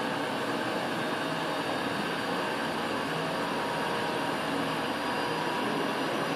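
Steady mechanical whirring from the electric motor spinning a Nipkow disc in a mechanical-television apparatus, with a hum that wavers in and out.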